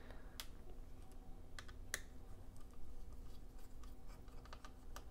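Faint, scattered small clicks and taps of a tri-wing screwdriver and the tiny battery screws being handled over an open MacBook Pro's aluminium case, a few at first and more often in the second half.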